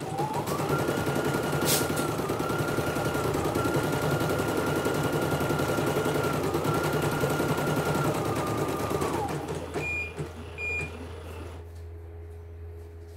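Portable computerised embroidery machine stitching: its motor speeds up, runs steadily for about nine seconds, then winds down and stops. Two short high beeps follow, the machine signalling a stop for the next thread colour.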